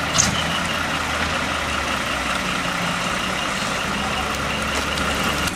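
Diesel engine of a small decorated cab-over truck running steadily as it drives slowly past, with a regular train of quick high-pitched beeps over it. A single short click comes just after the start.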